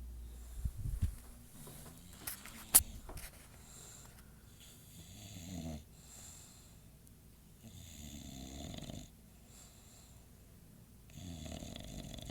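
English Bulldog snoring in its sleep: three long snores about three seconds apart. A few knocks and one sharp click come in the first three seconds, the click the loudest sound.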